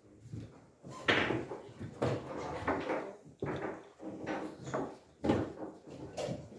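A run of knocks and bumps in a room, about nine in quick, irregular succession.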